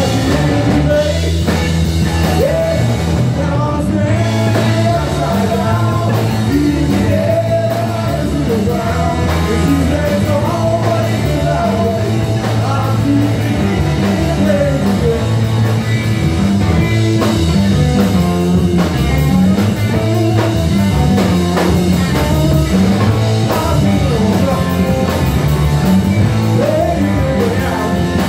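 Live rock band playing loud: electric guitars and a drum kit, with a man singing lead over them.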